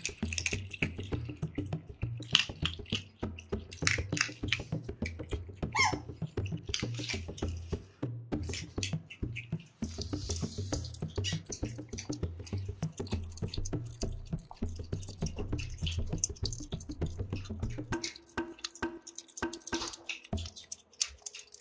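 Asian small-clawed otter chewing egg with open-mouthed smacking: a dense run of rapid wet clicks and smacks.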